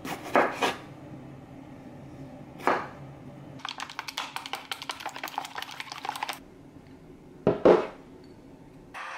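Three chops of a cleaver through tomatoes onto a wooden cutting board, then about three seconds of rapid clicking as eggs are beaten in a glass measuring cup with a wooden utensil. A louder knock comes near the end.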